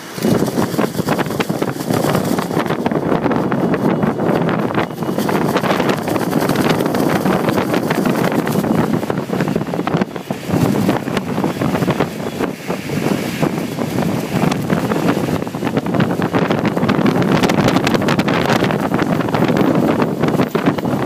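Hurricane-force wind of over 70 mph blowing hard against the microphone, a loud, gusting rush with constant buffeting that comes in abruptly at the start.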